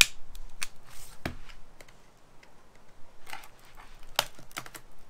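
Irregular light clicks and taps of a smashed iPad and its parts being handled and pried apart by hand, with a few sharper knocks.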